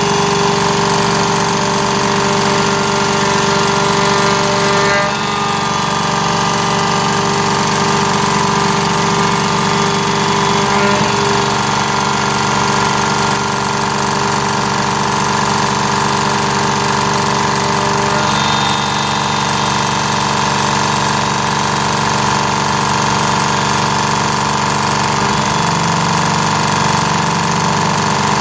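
Carvera Air desktop CNC mill's spindle running steadily while its end mill cuts a slot in metal in shallow 0.25 mm step-downs: a continuous machine sound made of several steady tones, dipping slightly in level about five seconds in.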